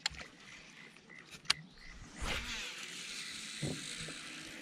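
A sharp click, then the spool of a baitcasting reel whirring for about two and a half seconds as line pays out on a cast, stopping abruptly.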